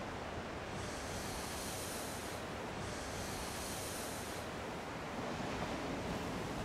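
Ocean surf: a steady rushing wash of breaking waves, with wind on the microphone. Two stretches of brighter hiss come in the first half.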